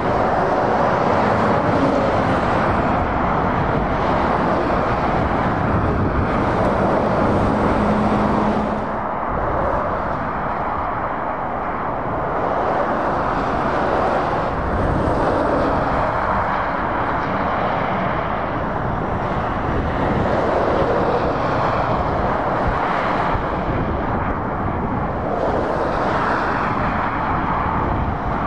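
Motorway traffic: tyre and engine noise from lorries and cars passing, rising and falling as each vehicle goes by. A steady hum stands out for a few seconds about a quarter of the way in.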